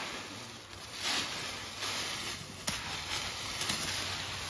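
Dry fallen leaves rustling and crackling as they are scooped up by hand into a sack, in uneven surges with a sharp crack near the middle.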